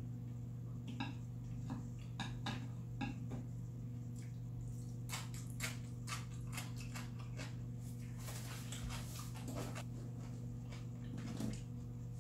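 Close-up eating sounds: chewing and slurping of black-bean-sauce noodles, with small clicks of wooden chopsticks against the dishes. A steady low hum runs underneath.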